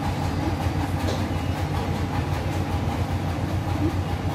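A steady, loud low rumble of background noise with a fast flutter in it, unbroken throughout.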